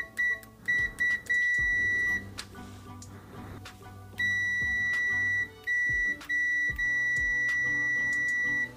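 The ZOYI ZT-701 multimeter's continuity beeper sounds a steady high-pitched tone as the probes make contact. It stutters on and off for about two seconds, stops for about two seconds, then sounds again for about four and a half seconds with a few brief dropouts.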